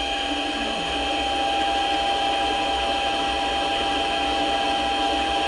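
Mini lathe running with a steady high whine while a spring-holder form tool cuts a 5/16-inch radius on the end of a 1018 steel rod.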